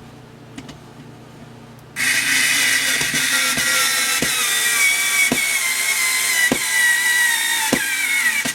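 Skil 4-volt cordless screwdriver's motor whining as it drives a drywall screw into wood. It starts about two seconds in, its pitch sinks slowly as the motor slows under the screw's load toward the end, with a faint knock about once a second, and it cuts off suddenly.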